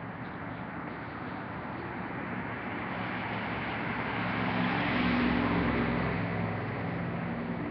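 A car driving past on the street, its engine and tyre noise growing louder to a peak about five seconds in, then fading.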